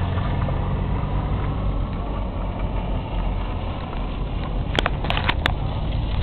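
Car engine running with a steady low rumble as a small car is driven around a wet lot. Four sharp clicks come close together about five seconds in.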